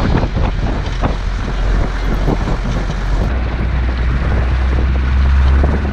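Heavy wind buffeting on the microphone over the low rumble of a 4x4 jeep driving over rough sand and gravel, with frequent knocks and jolts. The rumble swells toward the end.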